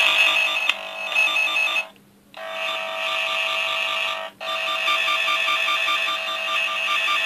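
Cable tracer probe sounding its warbling electronic tone as it picks up the tone generator's signal on the cores of a multi-core cable during a search for a broken conductor. The tone cuts out about two seconds in and briefly again around four seconds, each time resuming.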